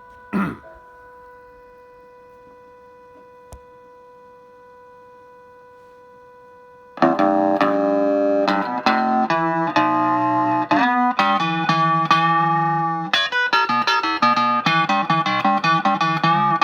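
Fender Stratocaster electric guitar played through a DOD Gonkulator ring modulator and a Roland JC-20 Jazz Chorus amp, with a clangy, bell-like ring-modulated tone. For the first seven seconds only a faint steady electronic tone from the idling rig is heard, then chicken-picking licks start, and the notes turn short and choppy near the end.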